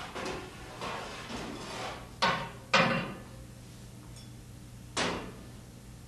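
Metal clunks and rattles as the drive pulley is worked off the inner basket shaft of a front-load washer. There are two sharp knocks a little over two seconds in and another about five seconds in.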